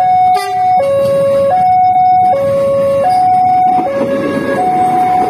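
Railway level-crossing warning alarm sounding a steady two-tone hi-lo signal, switching pitch about every three-quarters of a second. From about four seconds in, the rumble of the KRD diesel multiple unit passing rises beneath it.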